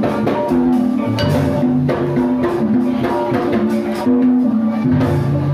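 Ebeg accompaniment music with drumming and pitched percussion playing a repeating stepwise melody, loud and continuous.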